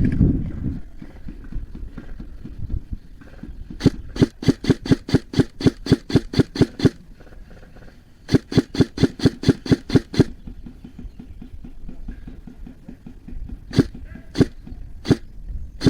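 Airsoft gun firing: two quick strings of shots, about six or seven a second, then a few single shots near the end.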